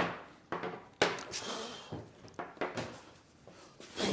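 A pop-up countertop outlet being pushed down into its drilled hole in a countertop: a series of light knocks and clunks, with a short scrape about a second in, as the housing settles into the hole.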